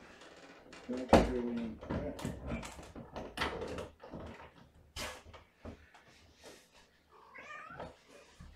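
Adult mother cat trilling and meowing in short calls, the last one near the end rising and falling in pitch. A sharp knock about a second in, with scattered clicks and taps around the calls.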